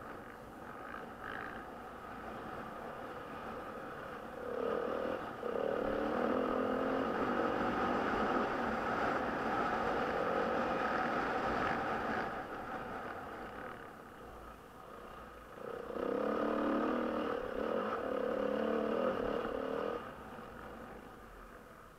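Dirt bike engine heard on board while riding a dirt track: it pulls hard under open throttle twice, from about four seconds in and again from about sixteen seconds, with quieter off-throttle running between.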